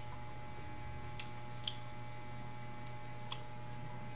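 Quiet chewing of soft dragon fruit flesh: a few short, soft mouth clicks over a steady low electrical hum.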